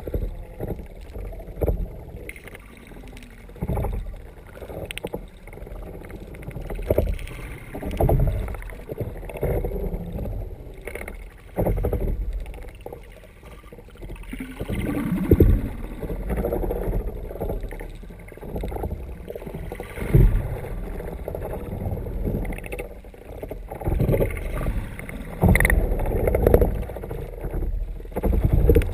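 Water washing against the underside of a moving kayak, heard muffled through a GoPro's waterproof dive housing mounted on the hull, in irregular low surges every second or few.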